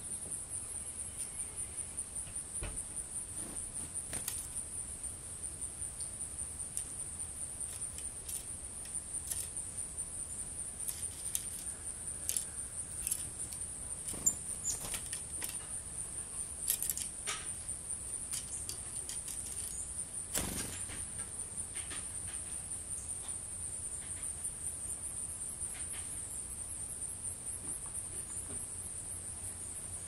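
Steady high-pitched insect trilling, with scattered light clicks and taps and one louder knock about twenty seconds in.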